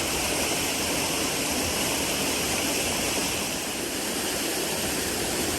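Waterfall pouring into a deep plunge pool: a steady, even rush of falling water.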